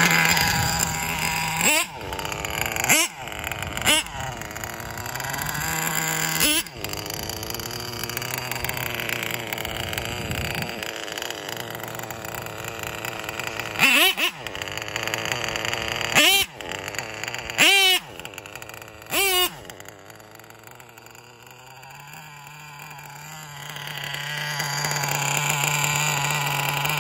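Nova 28.8 nitro engine of an MBX7 RC truggy idling with a steady drone, revved hard in short blips about eight times, each pitch sweeping sharply up and back down. The idle fades for a few seconds and then grows louder again near the end.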